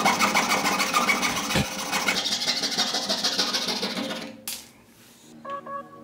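A fret saw cutting through a wooden popsicle stick in quick, even back-and-forth strokes, stopping about four and a half seconds in.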